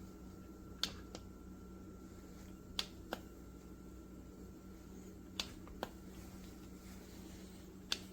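Stainless-steel electric coffee percolator perking as it brews: sharp pops in pairs, about every two and a half seconds, over a steady low hum.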